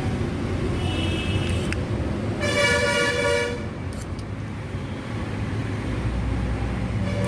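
A vehicle horn toots once for about a second, roughly two and a half seconds in, over a steady low rumble, with a shorter, fainter high tone a little before it.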